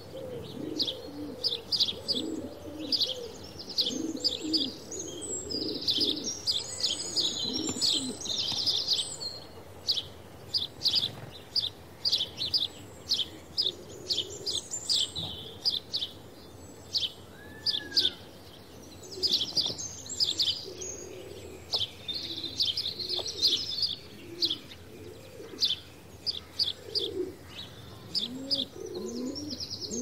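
House sparrow chirping: a steady run of short, high chirps, often several a second, with lower calls underneath that come and go.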